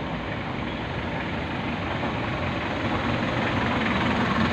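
Steady traffic noise with a motor vehicle engine running, growing slowly louder.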